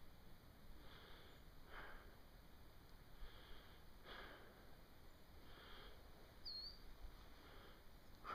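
Faint, even breathing of a hiker climbing on snowshoes, about one breath a second. A small bird chirps once late on.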